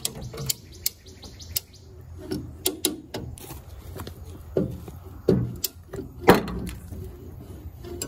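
Body work on a crushed sheet-metal quarter panel: irregular sharp clicks and metal knocks, with three louder clunks in the second half.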